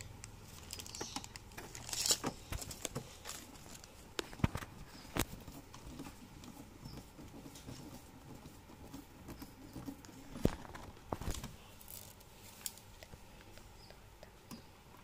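Hand screwdriver driving screws to fasten a stand leg onto the bottom of a flat-screen TV: scattered clicks, taps and light scraping, with a few sharper knocks.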